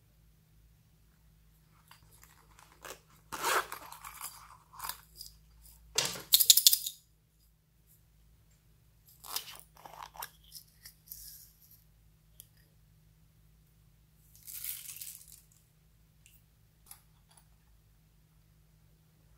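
Handling noises from a silicone pouch and a small plastic bottle of glitter. Several short bursts of crackling and rustling, the loudest about six seconds in, with quiet gaps between them.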